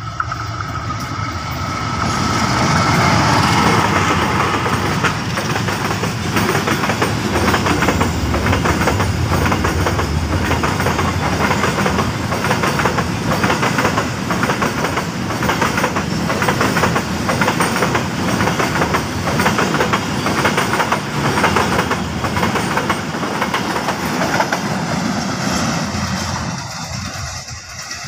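A CC 201 diesel-electric locomotive (GE U20C) hauls a long container freight train close past. It is loudest a few seconds in as the locomotive goes by. Then the container wagons roll past with a steady clickety-clack of wheels over rail joints, which fades away as the end of the train passes near the end.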